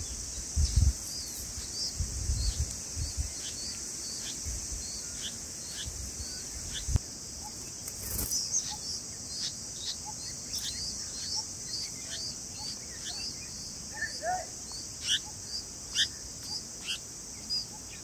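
Red-vented bulbul nestlings begging for food with short, high chirps again and again, over a steady high drone of crickets. A few dull low thumps come in the first seven seconds, and a lower call sounds about fourteen seconds in.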